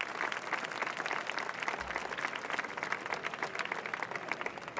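Crowd applauding.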